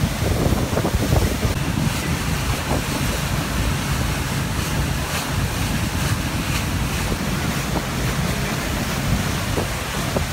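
Steady wind buffeting the microphone over the rush of water, as on a boat moving across a lake.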